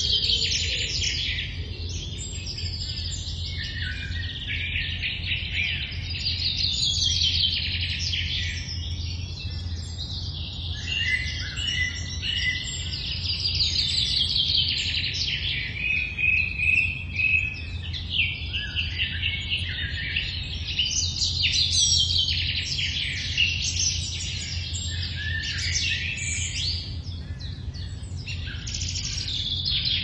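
Early-morning chorus of many songbirds singing over one another, full of rapid trills and chirps, over a steady low hum.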